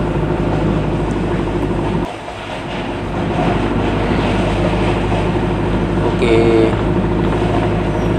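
Delivery truck's engine running steadily with road noise, heard from inside the cab while driving. The sound drops briefly about two seconds in, and a short high tone sounds about six seconds in.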